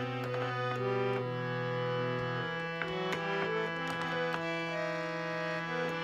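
Harmonium playing an instrumental passage: a slow melody over sustained low drone notes, the bass note shifting about two and a half seconds in.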